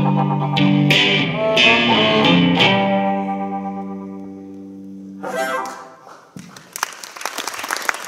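Electric guitar and harmonica playing the closing bars of a blues number: a few struck chords in the first three seconds ring out and fade, with a short final flourish around five seconds in. Audience applause starts near the end.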